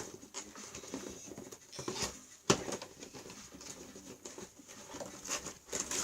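A toy box being opened and handled: scattered rustles and light taps of cardboard and plastic packaging, with one sharp click or snap about two and a half seconds in.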